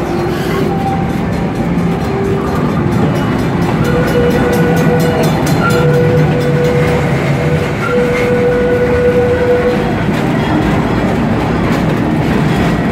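Amusement-park tour train running along its track, heard from an open passenger car: a steady rumble and rattle of the wheels and car, with a pitched tone that comes and goes between about four and ten seconds in.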